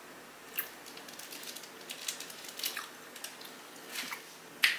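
Close-miked eating sounds: irregular crackly clicks and wet smacks of bread being pulled apart and chewed, with the sharpest smack near the end.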